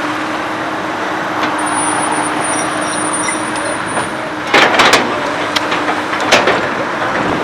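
Komatsu PC200 hydraulic excavator's diesel engine running steadily under work, with a thin high whine for a few seconds. Partway through come loud clattering knocks, and a second knock a little later.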